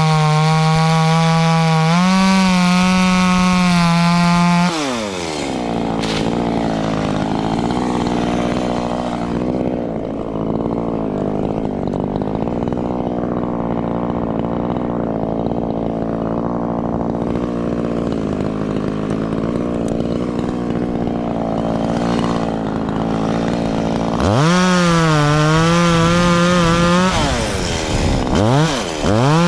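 Two-stroke chainsaw engine at high revs, dropping sharply to a low steady idle about five seconds in. Near the end it revs back up to a high whine, with a brief dip before climbing again.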